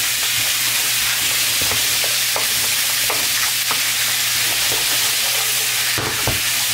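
Lamb cubes with onion, garlic, peppers and parsley sizzling steadily in a hot nonstick frying pan while a wooden spatula stirs and scrapes them. The spatula knocks against the pan now and then, with two sharper knocks near the end.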